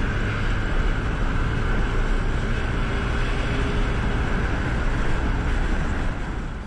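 Steady rush of wind and road noise with the engine of a small motorcycle cruising at speed, heard on a handlebar-mounted camera's microphone.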